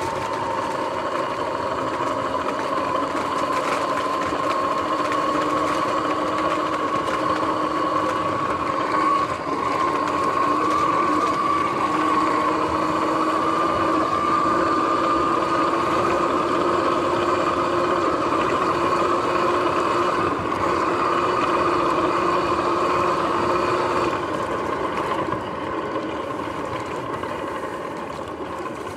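Sur-Ron X electric dirt bike under way, its motor and drive giving a steady two-pitched whine that creeps slowly upward in pitch with speed. The whine fades and the level drops about 24 seconds in. Tyre noise over grass and rough ground sits underneath.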